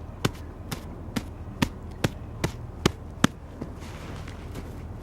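A tent trailer being rocked and shaken by hand, giving a run of sharp knocks about two and a half a second that stops a little past three seconds in.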